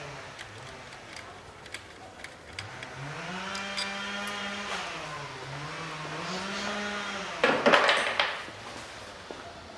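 Small electric motor of a cordless power tool run up and down on its trigger twice, its whine rising, holding and falling each time. This is followed by a short loud noisy burst about three-quarters of the way in.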